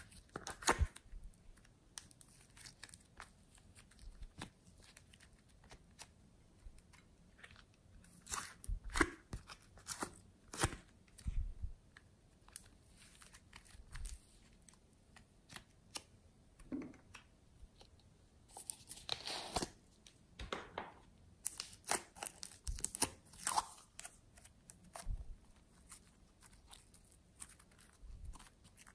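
Glossy slime with small beads mixed in being squished, stretched and kneaded by hand: irregular sticky squelches and crackles, bunched in busier runs with short quieter gaps.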